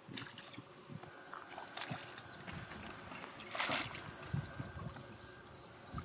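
An insect chirring steadily at a high pitch with a fast, even pulse, and a brief noise about halfway through.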